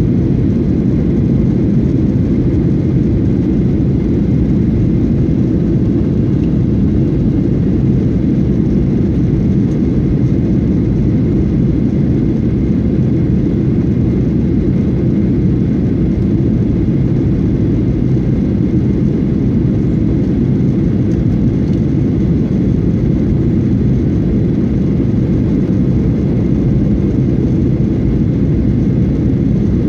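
Jet airliner cabin noise in flight: a loud, steady low rumble of engines and airflow that does not change.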